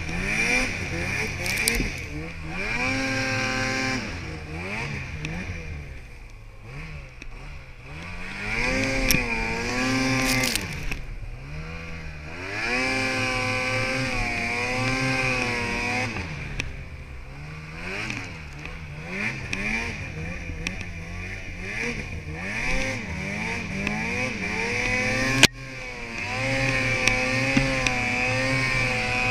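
Ski-Doo snowmobile engine revving up and down repeatedly while the sled ploughs through deep powder snow. A single sharp knock about 25 seconds in.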